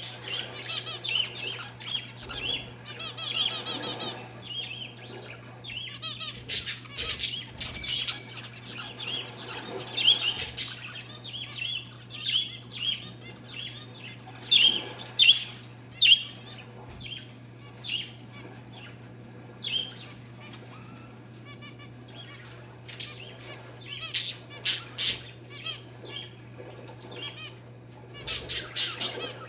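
Parakeets and zebra finches chirping continuously in quick short notes, with clusters of louder, sharper calls now and then. A steady low hum runs underneath.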